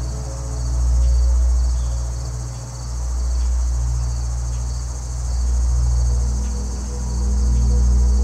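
Deep ambient drone that swells and fades in slow waves about every two seconds, over a steady, high, rapidly pulsing insect chirp.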